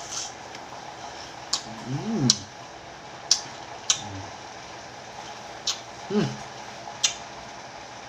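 Mouth sounds of a person eating sour kamias (bilimbi) fruit with salt: about six sharp clicks and smacks spread through, and two short hums, each rising then falling in pitch.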